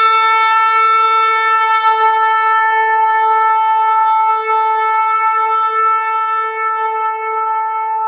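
A shofar blown in one long, steady, held note with bright overtones.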